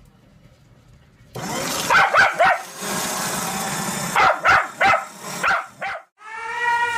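A dog barking in a run of short, pitched barks over a steady background hiss. Music starts near the end.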